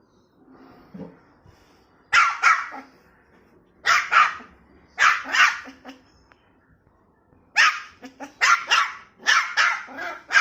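A white spitz-type puppy barking: short, sharp barks in pairs, then a quicker run of them near the end. It is barking in protest at being left stranded up on a stool or sofa, wanting to be brought down.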